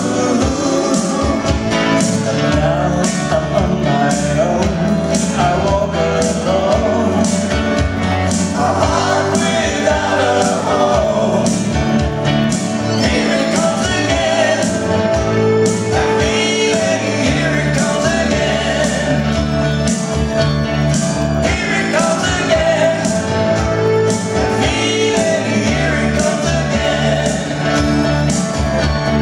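Live pop-rock band playing a song: electric guitar, bass guitar and keyboards over a steady beat, with male singing.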